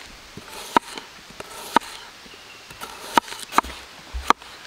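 Knife cutting onions on a cutting board: a series of sharp, irregular knocks, about one a second.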